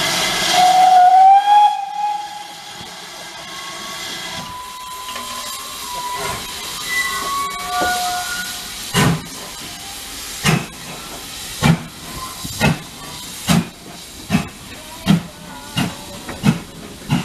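GWR 4200-class 2-8-0 tank locomotive No. 4277 sounding its steam whistle for about four seconds over hissing steam, then pulling away: exhaust chuffs begin about once a second and quicken as the train gets moving.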